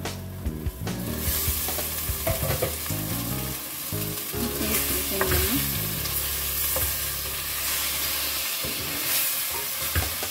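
Chicken pieces sizzling and frying in a pot, stirred and scraped with a wooden spatula, the hiss starting about a second in. The chicken is cooking down the liquid it has released.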